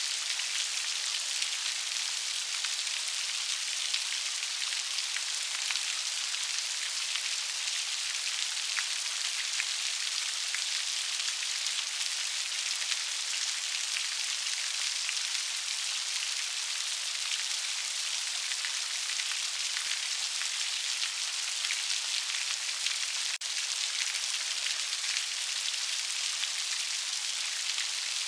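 Steady rain: a dense, even hiss of falling rain with many small, distinct drop patters mixed through it.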